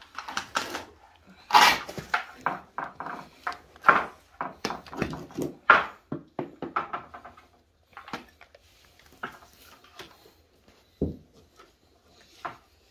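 Irregular knocks, scrapes and rustles as a wooden board and power tools are shifted about and set down on a concrete floor, busiest in the first half, with a single low thump near the end.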